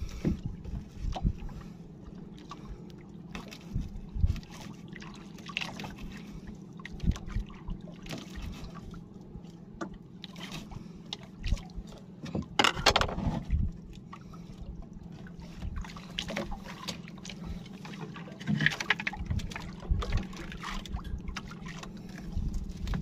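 Sea water sloshing and lapping against a small boat's hull, with scattered knocks from the boat and fishing gear. One louder rush of noise about halfway through.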